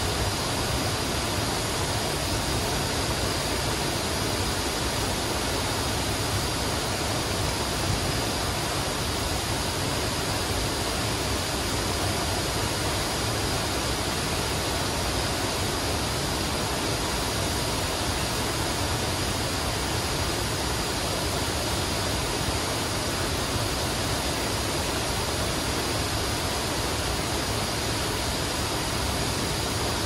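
Steady rushing of a wide waterfall pouring into a pool, an even, unbroken noise.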